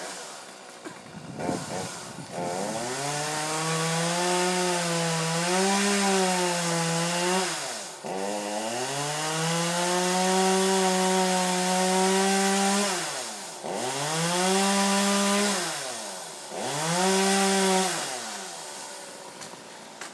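A chainsaw revved up from idle to full speed and let back down, four times: two long runs of several seconds each, then two short bursts near the end.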